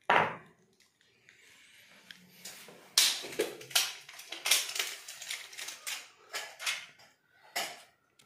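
Batteries and a gas geyser's plastic battery box clicking and knocking as new cells are handled and fitted. One sharp knock comes at the start, then a quick irregular run of clicks from about three seconds in until near the end.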